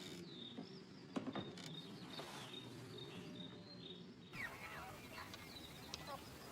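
Faint outdoor ambience with small birds chirping, plus a couple of soft clicks about a second in.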